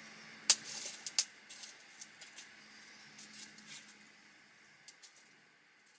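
Campfire crackling and popping in irregular sharp snaps, the loudest about half a second and a second in, growing sparser and fading out toward the end.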